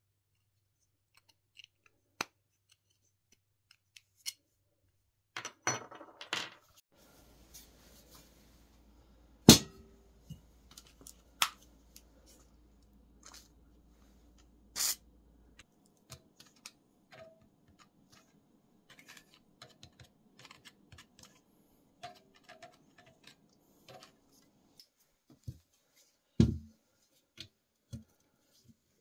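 Scattered clicks, clinks and knocks of hand tools and small steel bicycle parts being worked on a workbench: a socket ratchet on the bolts of a sidepull brake caliper and on a crankset's chainring bolts. The loudest knock comes about nine and a half seconds in.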